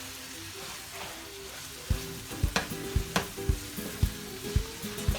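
Onion and ground meat for a mantı filling sizzling in a pan as they are stirred, with a few sharp clicks of the utensil. From about two seconds in, a steady low beat of about two thumps a second runs underneath.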